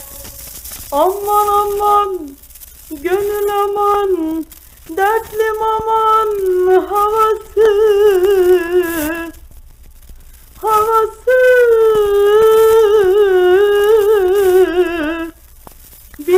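A woman singing solo on an old Turkish record, unaccompanied here, with long ornamented phrases and wide vibrato broken by short breaths. The longest phrase comes near the end and sinks slowly in pitch. Hiss from the old disc runs under the voice.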